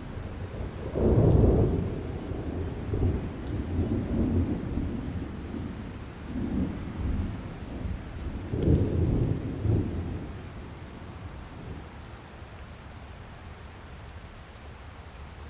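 Thunder rumbling in several rolls over steady rain, loudest about a second in and again around nine seconds, then dying away to leave just the rain.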